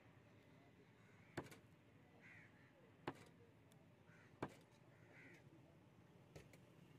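Knife chopping through fish on a wooden stump block: four sharp knocks about a second and a half apart, the last one fainter. Crows cawing a few times in the background between the knocks.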